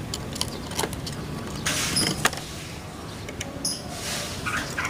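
A ring-necked dove moving about in its wire cage: light taps and clicks on the perch and wire, and a short wing-flutter about two seconds in as it hops down. A small bird gives a couple of brief high chirps near the end, over a steady low background hum.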